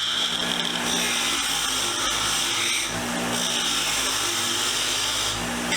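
Motor-driven wire wheel running steadily with the rusty, pitted steel blade of a screwdriver held against it, a hissing scrub of bristles on steel that grows louder and softer as the blade is pressed on and eased off.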